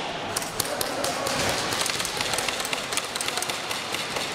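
Airsoft gunfire in close quarters: scattered, irregular sharp cracks of shots and BBs striking hard surfaces, several a second, over a murmur of voices.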